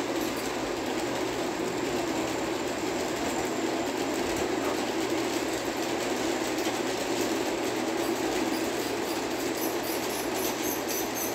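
Model electric train running steadily along its track, a continuous rumble of wheels and motor, with faint quick ticking near the end.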